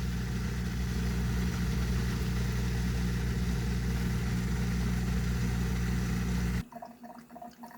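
Bosch dishwasher drain pump running with a steady hum, pumping out water; it cuts off suddenly about six and a half seconds in.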